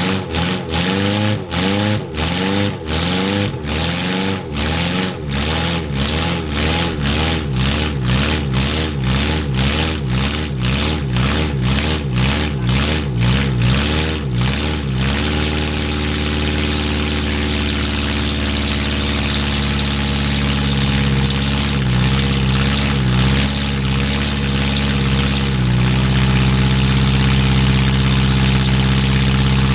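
Demolition derby van's engine, close up, revved in quick blips about twice a second for the first half, then held at a steady run that deepens a few seconds before the end.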